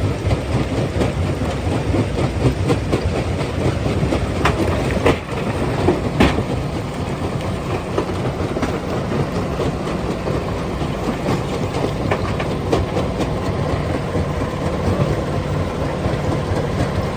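Stone crushing machinery running: a steady heavy rumble with continuous clattering, and a few sharp knocks between about four and six seconds in.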